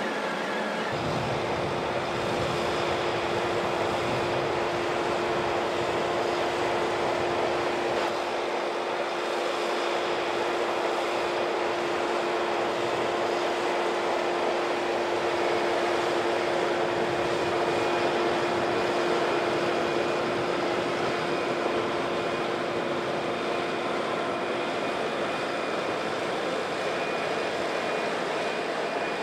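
Fendt tractor's diesel engine running steadily while it pulls a slurry tanker and injector through the soil, with a steady hum over the engine noise that starts about a second in and fades out a few seconds before the end.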